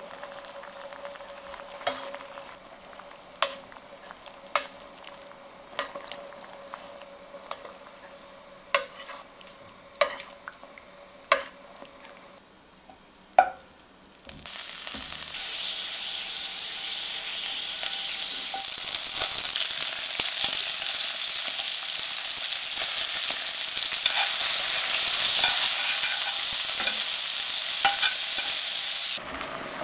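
Metal tongs click a few times against a metal saucepan of cream sauce as chicken thighs are turned in it. About halfway through, a loud steady sizzle starts as butter melts in a hot pan and carrots and green beans fry in it. The sizzle cuts off just before the end.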